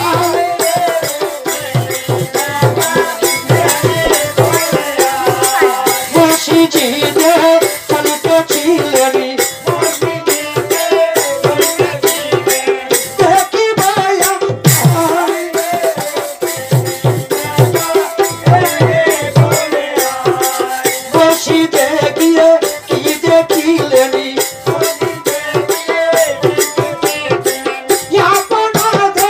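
Pala gaan folk music: a wavering melody over a regular hand-drum beat, with constant jingling of small hand cymbals or rattles.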